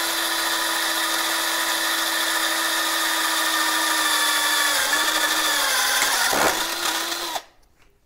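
Cordless drill running steadily, re-drilling a wire hole through a thin metal mounting plate. Its whine sags in pitch about five seconds in and wavers near six seconds, then the drill stops about seven seconds in.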